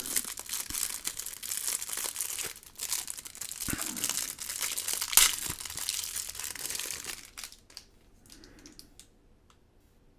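Packaging crinkling and rustling as a pen is unwrapped and handled, dying away about three-quarters of the way through, followed by a few faint clicks.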